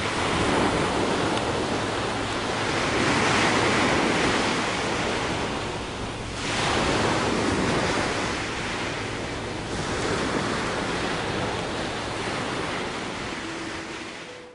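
Ocean surf washing in, a steady rush of noise that swells and ebbs in slow waves. The sound breaks off sharply about six seconds in and picks straight up again, then fades out at the end.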